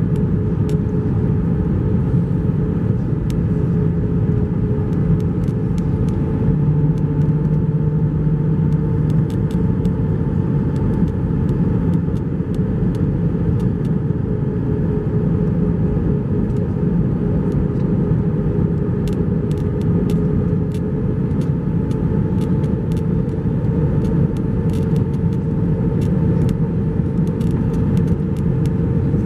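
Steady engine and airflow noise inside the cabin of an Airbus A321-231 on descent towards landing, from a window seat beside its IAE V2500 engine. A low hum runs under it and grows louder for a few seconds about a quarter of the way in.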